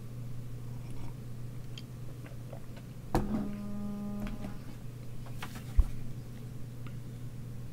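Graphite pencil hatching on paper on an easel: faint scratching strokes and ticks over a steady low hum. About three seconds in there is a sharp knock followed by a brief steady tone, and near six seconds a short low thump.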